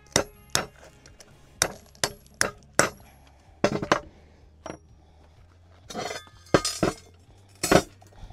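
Hammer blows breaking up glassy fire-assay slag inside a cast-iron cone mold: sharp clinking strikes with a short metallic ring, six in the first three seconds and a quick cluster near four seconds. Later comes a rattling and scraping of loose slag pieces as they are worked out of the mold.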